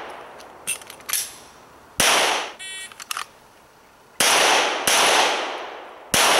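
9mm M&P pistol shots, each ringing out for about a second: one shot about two seconds in, a quick pair about four seconds in, and a third shot near the end.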